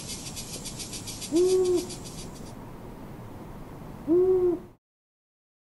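An owl giving single short hoots, one about every three seconds, three in all, over a high, fast chirring of insects. The insects stop about two and a half seconds in, and the sound cuts off abruptly just after the last hoot.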